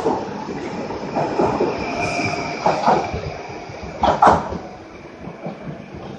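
PKP Intercity ED160 (Stadler FLIRT) electric multiple unit running past along the platform, its wheels clacking sharply over rail joints, with a thin high squeal over the running noise. It fades near the end as the rear of the train pulls away.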